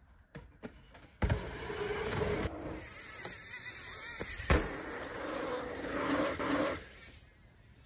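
Mountain bike riding the dirt jumps: tyres rolling and skidding on packed dirt, with two heavy landing thumps, about a second in and again about four and a half seconds in.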